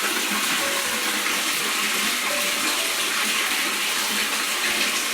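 Water running steadily, a constant even rush.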